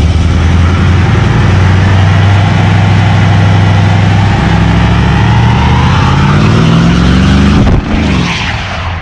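A car engine running loudly, its pitch climbing as it revs from about halfway through, then cutting off sharply near the end and fading away.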